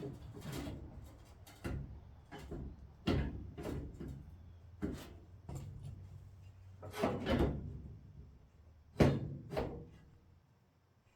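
Irregular knocks and clunks of parts being handled and fitted, as a brake pedal assembly is worked into place in a truck cab; the loudest knock comes about nine seconds in, followed shortly by another.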